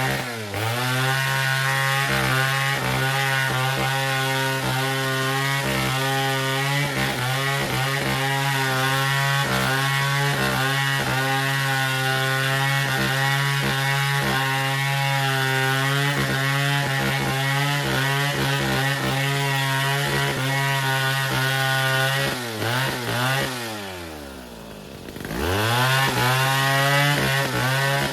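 Chainsaw running at full throttle through wood, its pitch wavering as the cut loads it. Near the end it drops toward idle, revs up again for a couple of seconds, then falls away.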